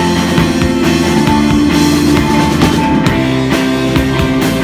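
Live rock band playing loud: distorted electric guitars held on sustained chords over a steadily pounding drum kit.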